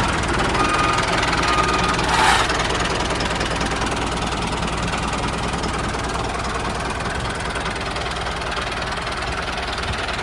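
Mini tractor's small engine running steadily with a fast, even chug. There is a brief rush of noise about two seconds in.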